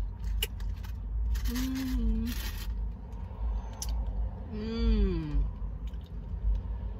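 A woman's two short wordless hums, the second falling in pitch, with crinkling of a paper hot sauce packet as it is torn and squeezed, over a low steady rumble.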